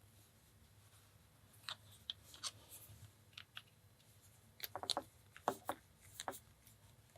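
Small sharp clicks and taps of a pin-tumbler lock and its tools being handled during disassembly, with a quick run of ticks a little before the middle and the loudest tap shortly after it.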